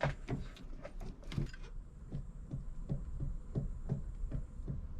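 Yamaha Drag Star driveshaft universal joint rocked up and down by hand, knocking about three times a second as its play is taken up. This is play in the cross, with a tapping that the owner suspects comes rather from the intermediate shaft.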